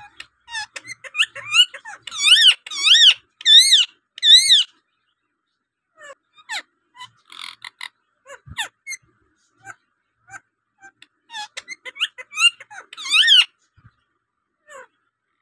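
Rose-ringed parakeet calling: scattered short chirps and clicks, broken by two runs of loud, shrill, rising-and-falling screeches, one a couple of seconds in and another near the end.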